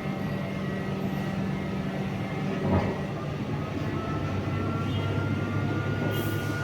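Heavy machinery running steadily with a deep hum. A single clank comes a little before halfway, and a short hiss comes near the end.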